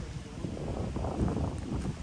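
Wind buffeting the microphone: a rough, gusting rumble.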